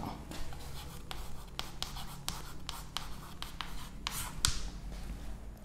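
Chalk writing on a blackboard: a string of short sharp taps as the strokes land, with a couple of longer scratchy strokes about four seconds in.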